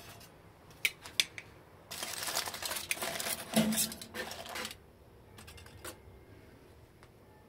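Aluminium foil crackling and rustling as metal grill tongs work an opened foil packet of cooked onions, with a couple of sharp tong clicks about a second in and one louder knock midway.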